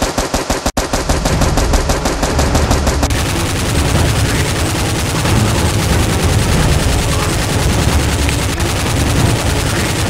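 Dubbed automatic-gunfire sound effect laid over the toy-blaster shooting: rapid, evenly spaced shots. After about three seconds the separate shots blur into a continuous dense barrage.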